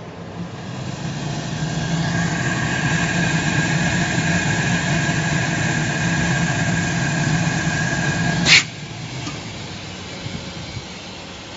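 Shoe-upper vacuum welding machine running: a steady hum with a high whine that builds over the first two seconds and holds. About eight and a half seconds in a short, loud hiss cuts through, and the machine's sound drops after it.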